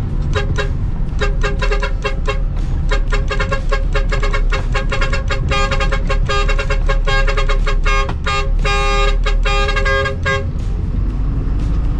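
Truck horn sounded in a long run of quick, rhythmic toots, stopping about ten seconds in, over the low running of the dump truck's engine.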